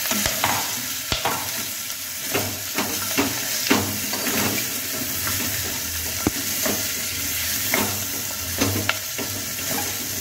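Chopped vegetables sizzling in hot oil and spices in a pressure cooker as a wooden spatula stirs them, with irregular knocks of the spatula against the pot.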